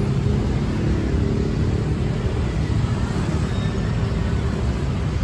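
Street traffic: a steady low engine rumble from vehicles idling and moving close by.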